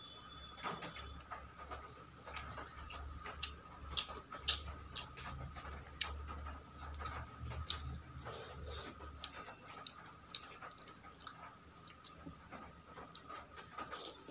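Close-miked chewing and mouth sounds of someone eating: irregular wet clicks and smacks. A faint steady whine runs underneath.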